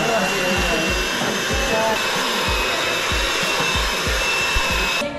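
Electric hand mixer running steadily at speed, its beaters whirring through cookie dough in a bowl, with a thin high whine over the motor noise. It cuts off suddenly near the end.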